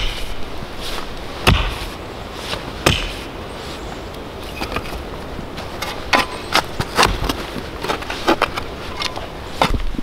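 Mattock chopping into soil and roots, a series of irregular dull strikes every second or so, a few of them sharper and louder.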